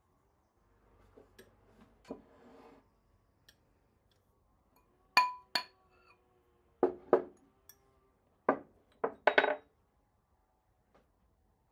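Kitchenware clinking: sharp clinks and knocks of utensils against dishes, mostly in quick pairs through the middle, the loudest about five seconds in.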